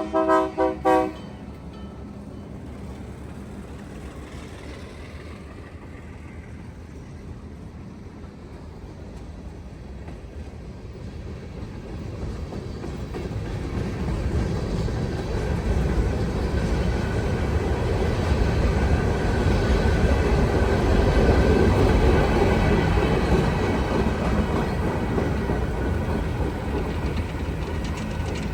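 ALCO C420 diesel locomotive: its chime horn sounds and cuts off about a second in, then the engine and wheels on the rails rumble steadily louder as it approaches, peaking about three-quarters of the way through and easing slightly as it passes.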